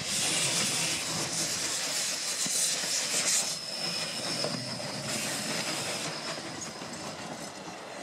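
Narrow-gauge steam tank locomotive U36.003 'Katka' rolling slowly past with its train, steam hissing from the cylinder drain cocks. The hiss eases off about three and a half seconds in, and the sound fades as the train moves on.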